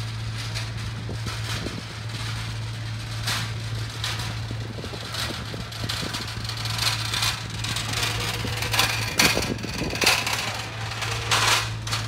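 Steady low mechanical hum with scattered clattering knocks over it, busier and louder in the second half.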